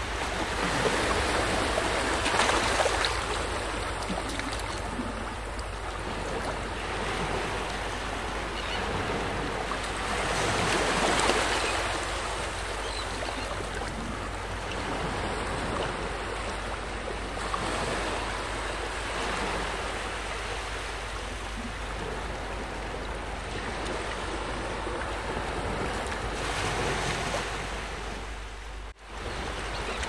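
Ocean surf washing onto a sandy beach: a steady rush of waves that swells louder every eight or nine seconds as each wave breaks and draws back, dropping out for a moment near the end.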